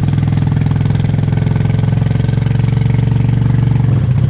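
Cruiser motorcycle engine running steadily under way, heard from the rider's seat, with a slight change in tone about four seconds in.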